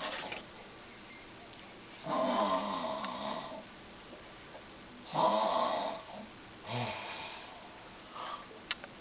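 A woman snoring in her sleep: three snores, about two, five and seven seconds in, the last one shorter and fainter.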